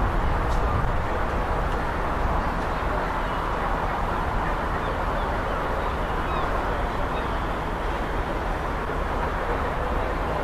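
Steady rumble of a steam-hauled passenger train on the move.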